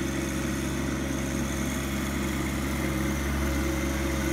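Compact diesel tractor engine running steadily as the tractor drives slowly across grass, a low even hum.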